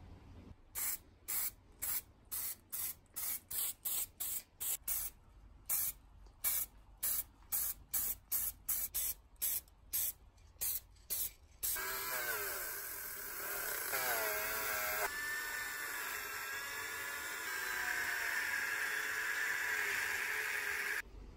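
An aerosol spray paint can fires about two dozen short sprays in quick succession. Then a handheld rotary tool with a small wire brush bit runs on a steel pipe without a break, its whine wavering as the load changes, and stops just before the end.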